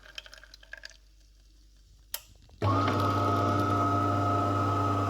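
A DeLonghi Magnifica S bean-to-cup espresso machine starts its one-cup brew cycle: near quiet with a single click, then about two and a half seconds in a loud, steady motor hum and buzz kicks in and keeps running.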